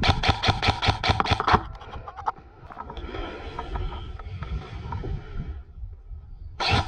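Airsoft rifle firing a rapid string of shots, about seven a second, for the first second and a half. A few seconds of rustling and scraping follow.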